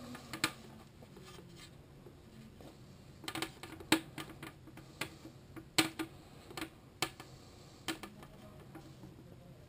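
Handling noise of a transducer cable being pulled through a ferrite choke: rubbing with a scattering of sharp clicks, the loudest about four seconds in.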